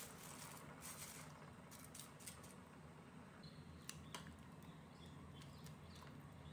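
Faint sounds of a pot of spaghetti at the boil being stirred: a low, steady bubbling hiss with a few light clicks and taps of a metal pasta server against the pot, around two and four seconds in.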